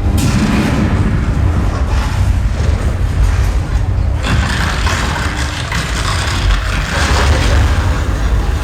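Simulated earthquake effects of a theme-park attraction: a continuous deep rumble with crashing, rushing noise over it, which grows louder and hissier about four seconds in.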